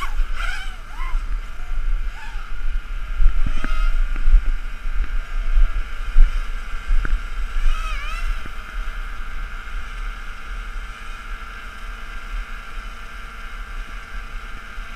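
Electric motors and propellers of a mini racing tricopter with SunnySky 2205 2300KV motors and a second hovering multirotor, buzzing overhead in a steady high whine. The pitch dips and climbs again as the throttle changes about eight seconds in. Wind rumbles on the microphone throughout.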